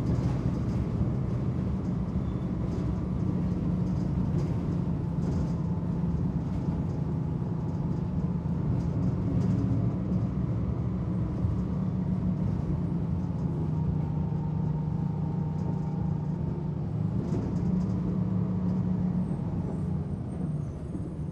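Old bus engine heard from inside the passenger cabin: a heavy, low, steady rumble, dropping slightly in level near the end.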